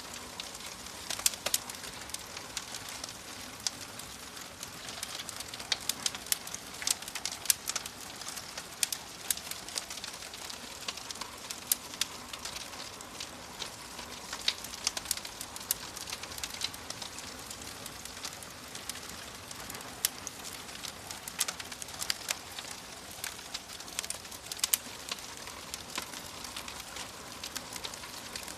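Wood fire crackling in a fireplace: a steady soft hiss with frequent sharp pops and snaps at irregular intervals.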